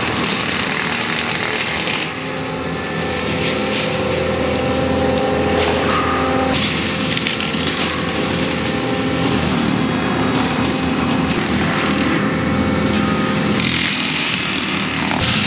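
ASV RT-135 compact track loader running a forestry mulcher, its engine under load while the spinning mulching head grinds through brush and wood. The engine note steps up and down a few times as the load changes.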